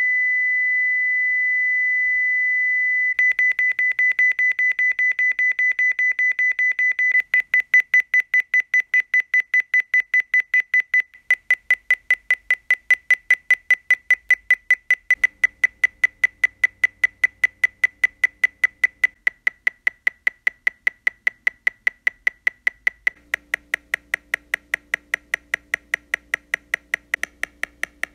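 A synthesized pure tone near 2 kHz, held steady for about three seconds, then chopped into evenly repeating pulses a few times a second. The pulses get shorter in steps, from 64 cycles of the tone down to 4, so the clear beep turns into a train of clicks with no single pitch: the short pulses spread over many frequencies, the time-bandwidth limit.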